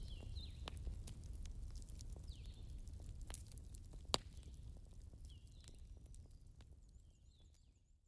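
Wood fire in a fireplace crackling, with scattered pops over a low rumble and one sharper pop about four seconds in. A few short high chirps sound now and then, and everything fades out near the end.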